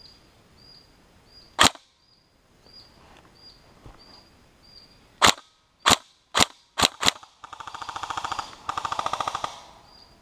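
Airsoft guns firing: one sharp shot, then a few seconds later five quick single shots, then two rapid full-auto bursts of about a second each. A faint chirp repeats about twice a second in the background.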